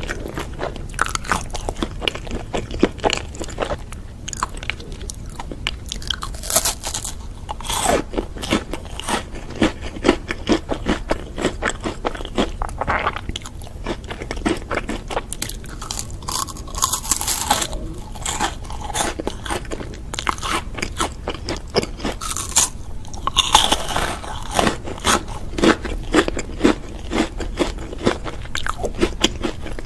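Close-miked eating: a steady run of crunchy bites and chewing, with many small crackles and clicks.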